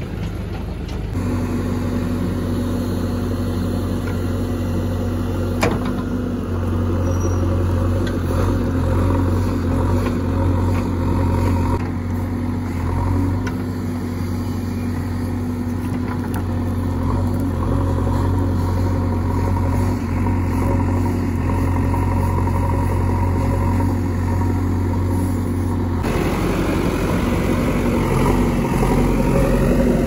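Diesel engine of a JCB 3DX backhoe loader running steadily while it works. The engine note changes abruptly about a second in and again about four seconds before the end.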